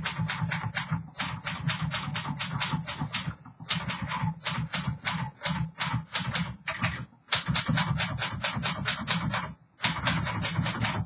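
1932 Smith Corona Sterling flat-top manual typewriter being typed on: quick runs of key strikes, several a second, broken by a few brief pauses.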